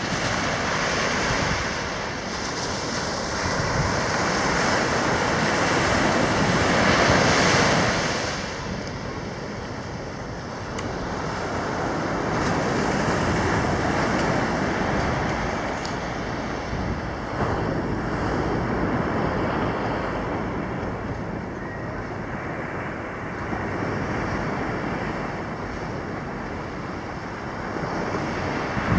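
Small waves breaking and washing up a sandy beach, the surf noise swelling and easing every few seconds, loudest about seven seconds in.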